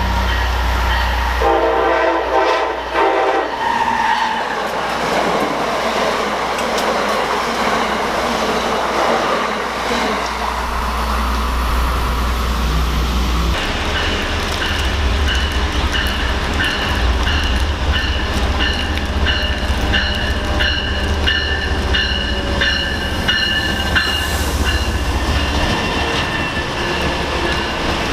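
A train sounds its horn briefly about a second and a half in, then rolls past with a steady rumble and rhythmic wheel clicks over the rails; from about halfway through, a steady whine joins the clicking.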